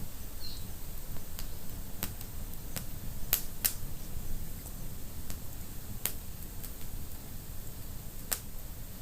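Wood fire burning in a fireplace: scattered sharp crackles and pops, irregularly spaced, over a low steady rumble.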